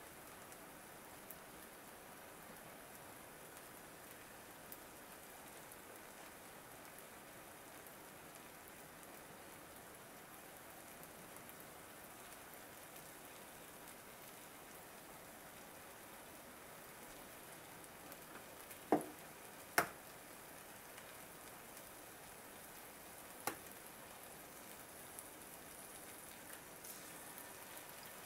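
Char koay teow noodles sizzling steadily in a hot cast iron skillet. Three sharp knocks cut through: two close together about two-thirds of the way in and one more a few seconds later.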